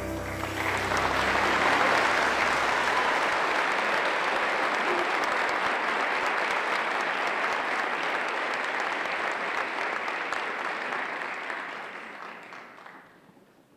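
Large audience applauding, building quickly to full strength and fading away near the end. Some low sustained tones of the music that preceded it die out under the applause in the first few seconds.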